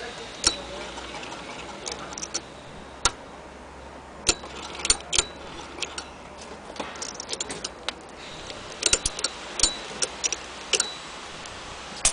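Vintage Frister & Rossmann hand-crank sewing machine being worked by hand: sharp, irregularly spaced clicks and clacks from its crank and mechanism, with a quick cluster of them about three-quarters of the way through.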